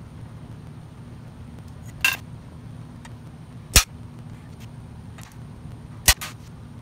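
Three sharp metallic clanks, about two, four and six seconds in, the middle one loudest, as a flat steel bar and a folding metal hole-spacing layout tool are handled and set down on a steel fixture table. A steady low hum runs underneath.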